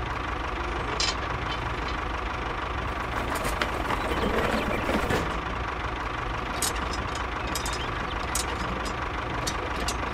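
Engine idling steadily, with a run of light clicks and taps in the second half.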